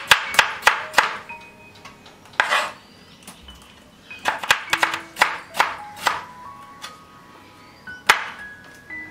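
Serrated knife chopping tomatoes on a wooden cutting board: several runs of quick strokes with pauses between. Soft background music of single bell-like notes plays underneath.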